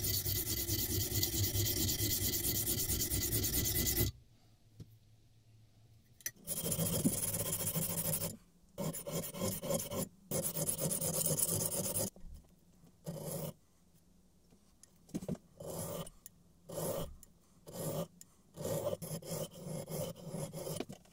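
A steel marking-knife blade, made from a piece of old plane blade, rubbed back and forth by hand on a 400-grit diamond sharpening plate to hone it: a rasping, gritty scrape. It runs unbroken for about four seconds, then comes in longer runs after a pause, and in the second half breaks into short separate strokes with gaps between them.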